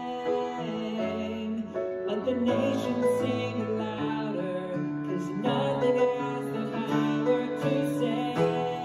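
Worship song: a man singing over strummed acoustic guitar and grand piano chords, at a slow, steady pace.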